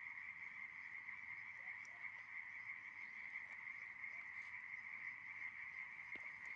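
A dense chorus of frogs calling together, a steady high-pitched trilling mass with no breaks, with a few faint sharp crackles from a bonfire of dry branches.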